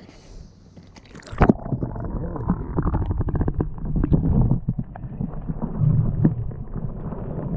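A splash about a second and a half in as the camera goes under the surface, then muffled underwater sound: bubbles gurgling with many small knocks and clicks.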